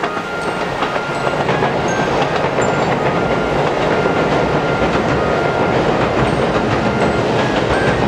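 KiHa 85 diesel limited-express train running on the rails. The rumble of wheels and engines grows steadily louder, with scattered clicks of the wheels over the track.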